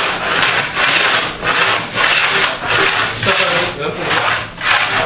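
Jack plane pushed in quick strokes across the grain of a glued-up cedar board, a rasping cut on each stroke, about eight strokes in a row; the board is being traversed to level it.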